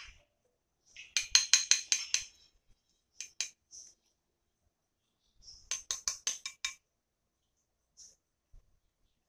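Plastic measuring spoon tapped quickly against a ceramic plate, in light clinks: a run of about seven about a second in, two single clinks a little later, and another run of about seven near the end.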